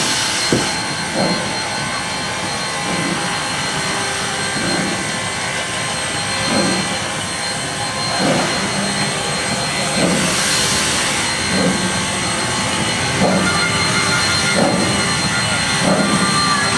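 1913 0-4-0 steam locomotive under steam, moving slowly: a steady loud hiss of steam with soft exhaust chuffs about every one and a half seconds, coming slightly quicker toward the end.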